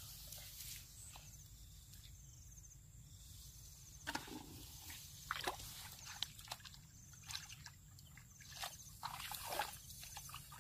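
Faint splashing and sloshing of shallow water. It is quiet at first, then comes a scatter of short splashes from about four seconds in.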